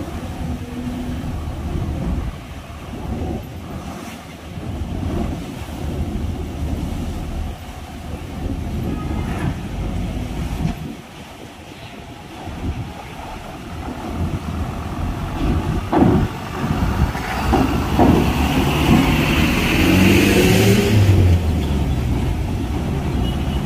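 Light diesel trucks driving off a ferry's bow ramp onto a steel dock plate, their engines running as they come closer. Clanks sound as wheels cross the ramp joints about two-thirds of the way in. Then a louder stretch of engine noise and a rushing hiss follows as a truck passes close by.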